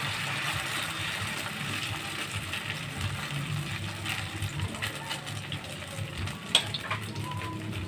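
Mung bean sprout and tuna batter sizzling and crackling in hot oil in a wok as it is pressed flat with a ladle, over a low steady hum. A sharp click stands out about six and a half seconds in.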